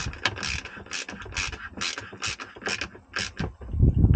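Ratchet wrench clicking in quick back-and-forth strokes while tightening a 13 mm nut onto the battery isolator's terminal stud, with a few louder dull knocks near the end.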